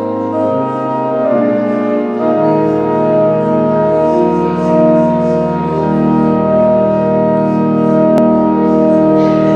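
Organ music: slow, sustained chords over a held low bass, with the chord changing every second or so.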